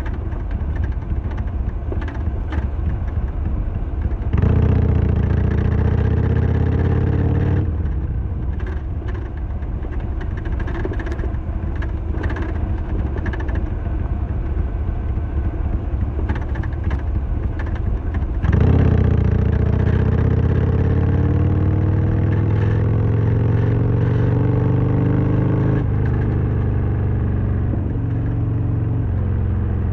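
Harley-Davidson Sportster XL1200R V-twin riding along. The engine pulls hard twice, about four seconds in and again past the middle, rising in pitch the second time. In between it runs softer, with a clatter of short clicks and knocks. That clatter is the rattle the rider is trying to trace, which he suspects comes from the side stand.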